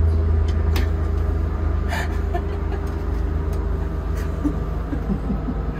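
Light-rail train running along the track, heard from on board: a steady low rumble with a steady hum and a few sharp clicks.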